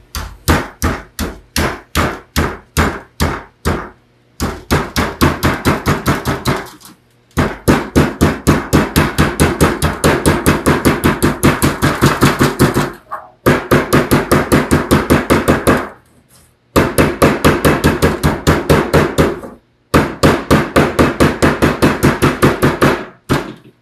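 A hammer striking the folded-over edge of a metal sheet on a wooden table, flattening the bend down into a smooth hem. Rapid even strikes, about four to five a second, in runs of a few seconds with short pauses between.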